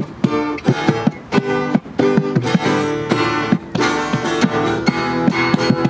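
Acoustic guitar strummed in a quick rhythm, with a goblet drum tapped along: an instrumental passage of a song with no singing.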